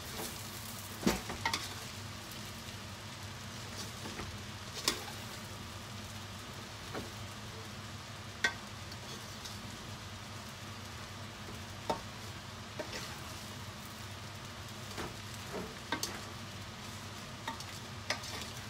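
Rice noodles (bihon) being stirred and tossed in a stainless steel pot with a slotted metal spoon, over a low, steady sizzle, with occasional sharp clinks of the spoon against the pot.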